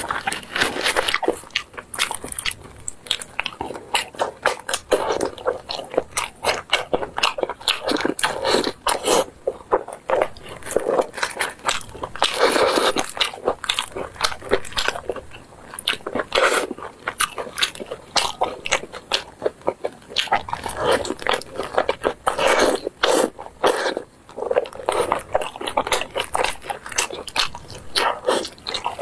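Close-miked eating: repeated biting and chewing, a dense irregular run of sharp clicks and crackles with no pauses longer than a moment.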